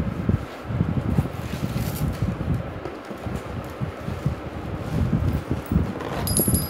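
Handling noise as a motorcycle rear disc brake kit is lifted out of its cardboard box and bubble wrap: irregular rustling and knocking over a low rumble, with a brief high ringing about six seconds in.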